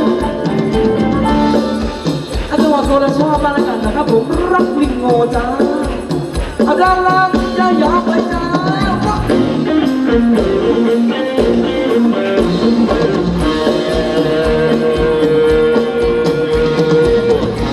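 Live Thai ramwong band music with a steady beat and a melodic lead line, with one long held note near the end.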